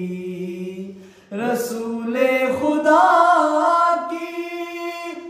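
Two men singing an Urdu naat (devotional kalam in praise of the Prophet) unaccompanied, drawing out long wavering notes. About a second in the voices fade into a brief breath pause, then a new phrase begins and swells louder.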